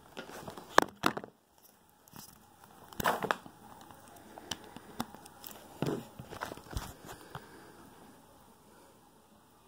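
Handling noise: an irregular scatter of clicks and short rustles, loudest about a second in and again around three seconds in, dying away after about seven seconds.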